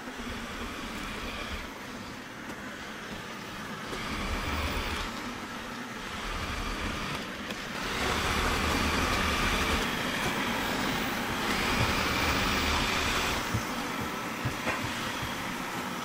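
360 S9 robot vacuum and mop running on a hardwood floor: a steady whir of its suction fan and brushes, louder from about halfway through.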